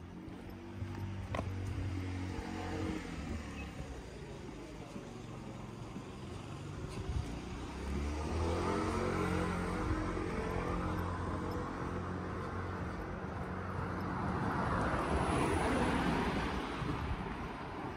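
Cars passing on a residential street, each engine and tyre sound swelling and fading as it goes by. The loudest pass comes near the end, as a small hatchback drives past close by.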